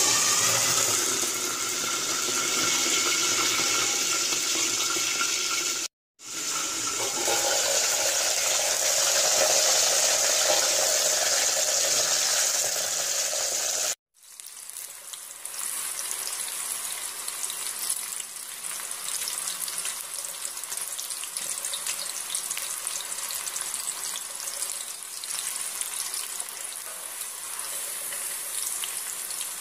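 White peas deep-frying in hot oil: a steady rushing sizzle, louder while the pan is covered by its lid. It drops out briefly twice, and for the second half it is a quieter, crackling sizzle in the open pan.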